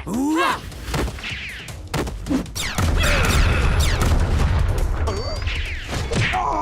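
Cartoon sound effects: short squeaky gliding cries in the first second, then a loud rumbling barrage of crashes and bangs from about three seconds in that lasts a couple of seconds.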